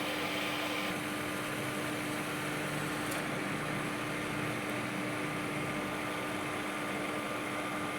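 A pan of herbal tea boiling on a stove: a steady rushing noise with a constant low hum underneath.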